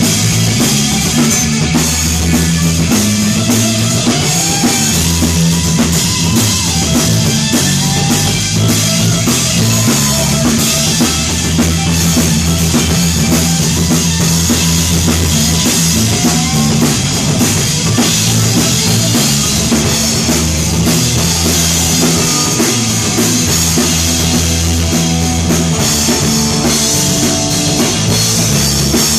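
Live rock band playing loud: a drum kit with bass drum and snare under electric guitars and a sustained low bass line.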